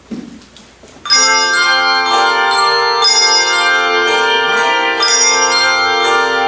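Handbell choir ringing: a full chord of many bells struck together about a second in, then new chords about once a second, each left to ring on.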